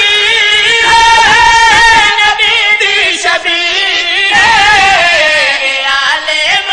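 A male voice sings a devotional qasida in long, ornamented held notes whose pitch wavers and slides.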